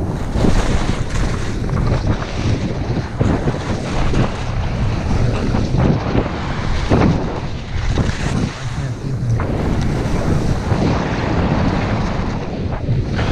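Wind buffeting the microphone of a camera carried by a skier at speed, over the hiss and scrape of skis carving on packed snow, surging irregularly with the turns.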